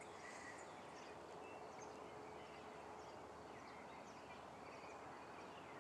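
Faint outdoor morning ambience with scattered distant bird chirps and a faint steady hum for a couple of seconds early on.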